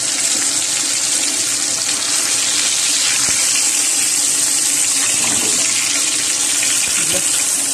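Floured pieces of beef sizzling in hot oil in a frying pan as they brown: a steady hiss.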